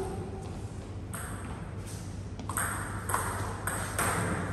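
Table tennis rally: the celluloid-type ball ticking sharply off the bats and the table, starting about a second in and coming more quickly, roughly every half second, toward the end.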